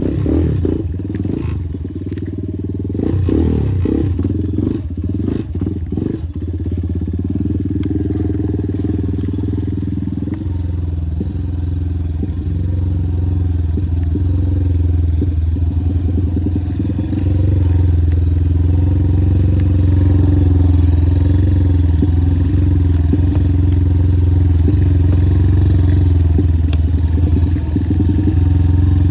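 Motorcycle engine running steadily, with clattering and scraping over the first several seconds.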